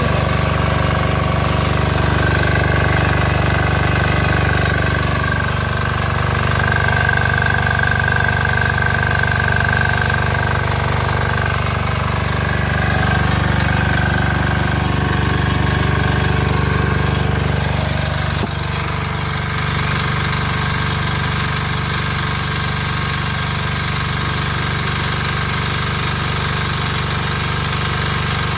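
Kipor diesel generator engine running steadily. Its sound shifts slightly about two-thirds of the way through, and a thin high whine rises in pitch and then holds near the end.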